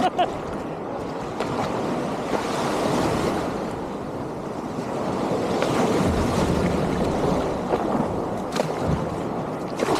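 Surf breaking and washing in the marsh: a steady rush of water that swells louder about three seconds in and again around six seconds in.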